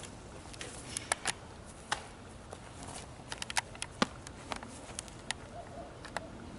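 Quiet outdoor background with scattered, irregular sharp clicks and ticks, the clearest about four seconds in.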